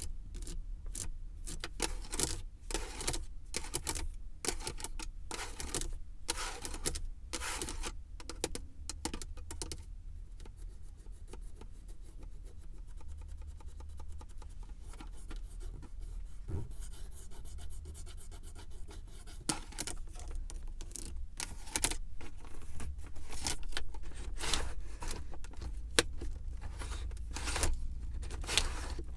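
ASMR tapping and scratching with fingertips and nails on a car's surfaces: quick runs of crisp taps, with a softer stretch of fine, rapid scratching in the middle, over a steady low rumble.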